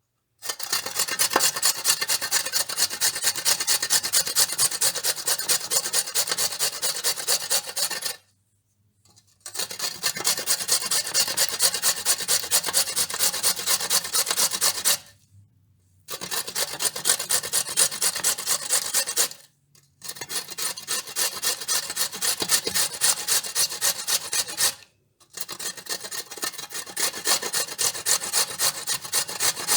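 A carrot being grated: quick, steady back-and-forth scraping strokes against a grater in five runs, with four short pauses between them.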